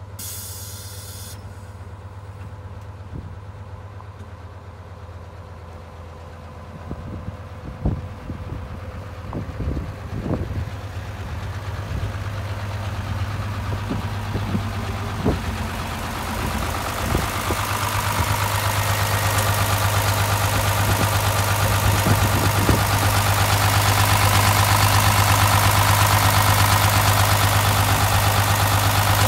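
Mitsubishi Aero Midi bus's 6D17 six-cylinder diesel idling steadily, growing louder over the second half until it is heard up close at the open rear engine compartment. A scatter of short clicks in the middle stretch.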